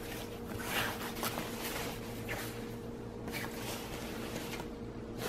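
Shell fabric of a puffer parka rustling and swishing in soft scattered bursts as the coat is handled and its front folded open, over a faint steady hum.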